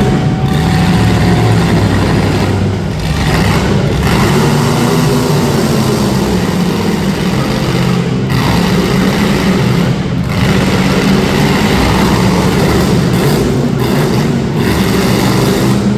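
Demolition derby street stock car engines revving hard, a loud steady engine noise with pitch rising and falling as the throttles are worked.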